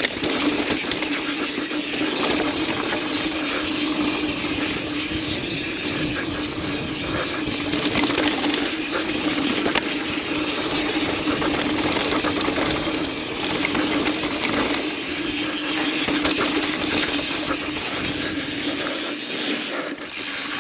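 Yeti SB150 mountain bike descending a rough dirt trail: tyres on dirt and rock, the bike rattling, and rushing air on the rider's camera microphone, with a steady hum underneath.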